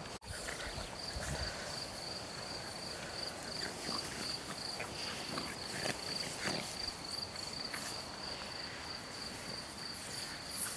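A cricket chirping steadily in the grass, a high, evenly pulsed song.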